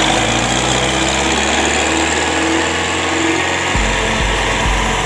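Farm tractor's diesel engine running as it pulls away with a trolley loaded with sugarcane. Near the end, music with a steady thumping beat of about two a second comes in.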